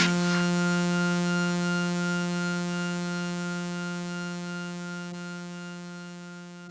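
Background electronic music ending on one held synthesizer note that slowly fades away.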